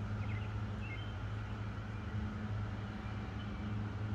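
Steady low machine hum, with a bird chirping briefly about a second in.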